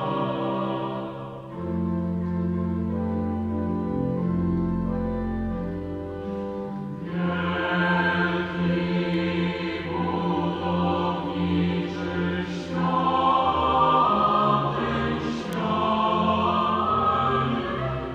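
Mixed choir singing a sacred piece in long held chords, with a deep bass line underneath. It grows fuller and louder about seven seconds in.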